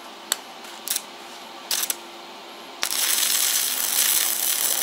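Stick (electrode) arc welding on steel plate: a few short scratches and taps of the electrode as the arc is struck, then, about three seconds in, the steady crackling hiss of the arc as a weld is run.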